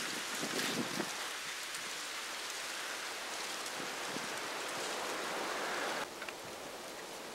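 Wind blowing over the microphone, a steady rushing hiss that drops abruptly in level about six seconds in.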